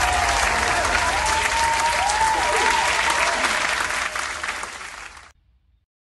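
A crowd applauding, fading away and cutting off about five seconds in.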